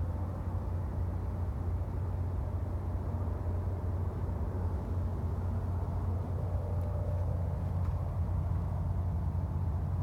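Steady low rumble of road traffic, an even drone with no distinct events.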